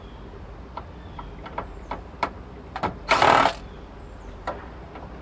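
A cordless drill-driver runs in one short burst of about half a second, roughly three seconds in, backing a Phillips screw out of a metal switch chassis. Light clicks and taps of metal parts come before and after it.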